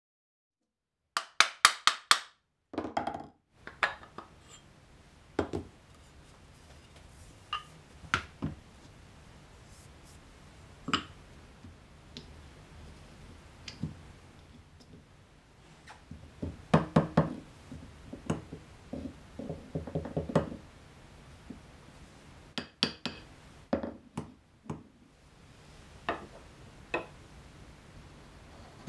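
Light knocks and taps of hand-tool work on a Japanese plane's wooden body: a quick run of about five strikes about a second in, further short clusters in the middle and near the end, and scattered single clicks between.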